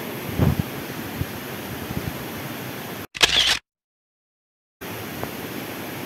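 Steady rush of waterfall and stream water with a few faint knocks. About three seconds in there is a brief loud burst, then the sound cuts out completely for about a second before the water noise returns.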